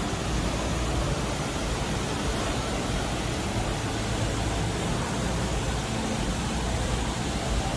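Steady, unbroken rushing noise, even across high and low pitches, with no distinct events in it.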